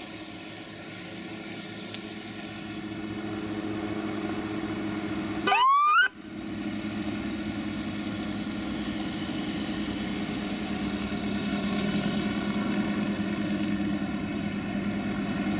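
A New Holland tractor's diesel engine running steadily as it drives slowly closer, growing louder. About six seconds in comes a short, loud rising siren whoop from a police car.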